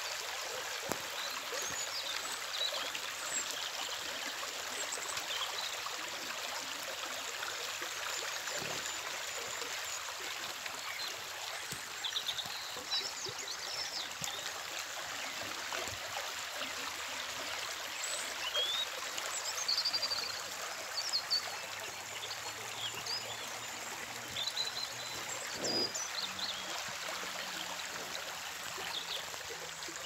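Shallow stream running over stones and rocks, a steady rush of rippling water, with small birds singing in short chirps over it.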